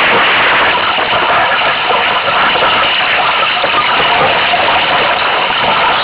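Steady, loud rushing of strong wind and water streaming past the hull of a Solo sailing dinghy under way.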